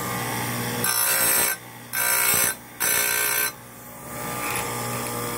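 Electric saw-chain grinder's motor running with a steady whine. From about one second in until about three and a half seconds in, a louder, higher whine comes in three stretches, with short drops between them.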